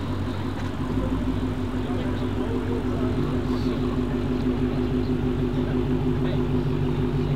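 Dodge Charger SRT Hellcat's supercharged 6.2-litre V8 through an aftermarket Vicrez exhaust, running steadily at low revs, a deep even exhaust note that firms up slightly about a second in.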